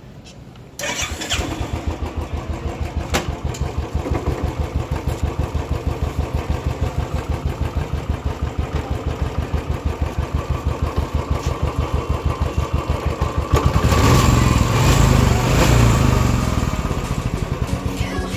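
Royal Enfield Classic's single-cylinder engine starting about a second in and idling with an even, rapid thump, then revving louder near the end.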